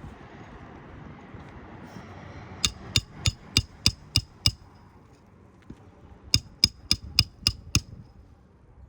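Hand hammer driving roofing nails into an asphalt shingle: two quick runs of sharp ringing strikes, about three a second, seven in the first run and six in the second.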